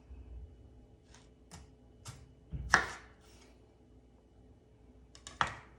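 A kitchen knife cutting through raw russet potatoes and knocking on a cutting board: a run of sharp knocks, the loudest about midway, and a quick pair near the end.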